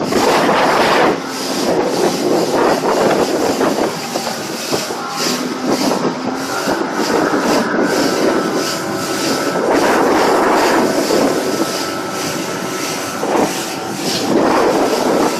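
A Nitro fish-and-ski boat under way on choppy water: a steady outboard motor rumble mixed with irregular louder surges as the hull slaps through the waves, and wind on the microphone.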